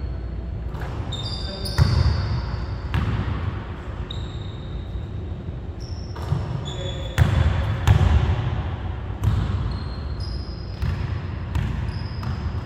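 A basketball bounces and hits hard on a hardwood gym floor. There are several sharp thuds, the loudest about two seconds in and again about seven to eight seconds in, each echoing in the large hall. Short high sneaker squeaks cut in between the thuds.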